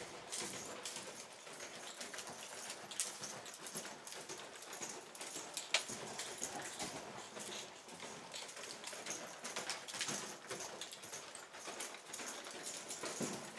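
A horse moving about a sand round pen: irregular hoof thuds and scuffs in the sand, with scattered sharper clicks, the strongest about six seconds in.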